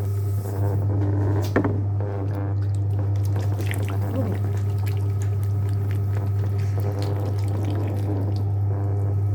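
JW Ratcliffe and Sons electric pottery wheel running with a steady low motor hum while wet porcelain clay is worked by hand on the spinning wheelhead, giving wet sloshing and squelching. A sharp knock about one and a half seconds in.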